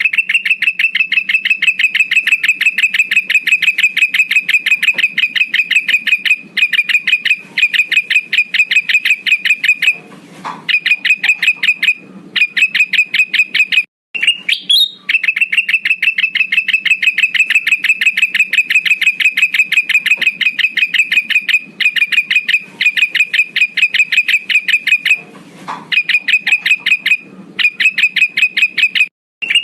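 Male kutilang emas, a bulbul, calling in a lure recording: long runs of fast, evenly repeated high chattering notes broken by brief pauses, with the same sequence looping about every fifteen seconds.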